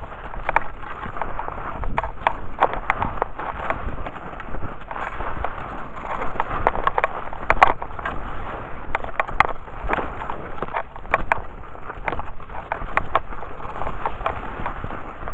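Cross-country skis sliding and crunching through soft spring snow, a steady shushing broken by frequent irregular sharp crunches and clicks.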